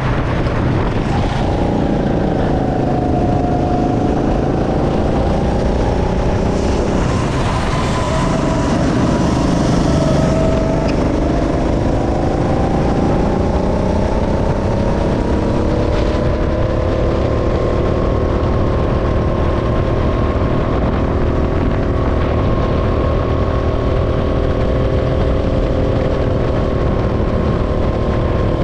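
Go-kart engine heard from on board. Its pitch dips a few seconds in as the kart eases off, then climbs steadily as it accelerates from about ten seconds in, and holds high and steady on the throttle.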